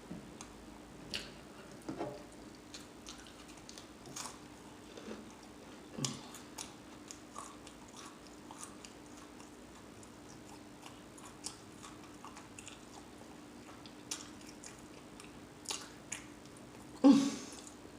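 Close-miked chewing and mouth smacking on crispy beef and cheese taquitos: quiet, scattered crunches and wet clicks, with a faint steady hum underneath. A brief louder mouth sound comes near the end.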